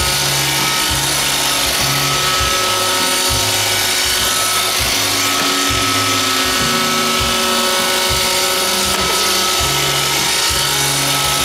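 iRobot Roomba 530 running, its vacuum and brush motors spun up to a steady whine.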